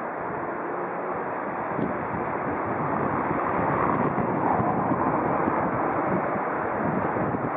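Wind buffeting the microphone over a steady rush of river water.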